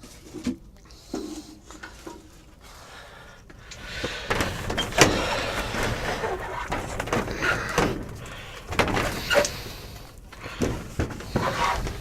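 A sponge scrubbing the inside of greenhouse panes in bouts of rubbing strokes, with a few light knocks.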